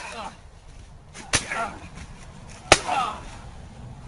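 Two sharp smacking strikes of a staged wrestling fight, about a second and a half apart. Each is followed by a short cry that falls in pitch.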